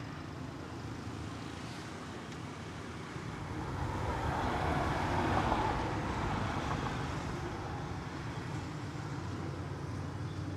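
Steady traffic-like rumble and hiss that swells louder for a few seconds in the middle, as if a vehicle passes, then settles back.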